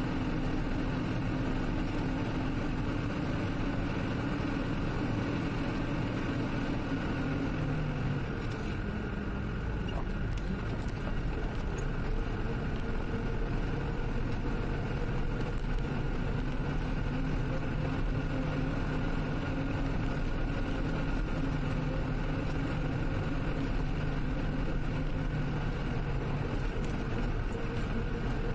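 A vehicle's engine running steadily while driving along a road. Its note changes about eight seconds in, then settles at a new steady pitch.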